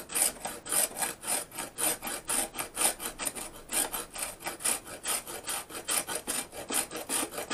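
A block of processed clay being rubbed back and forth on a rasp file in quick, even scraping strokes, several a second, grating the clay into fine powder. It wears away slowly.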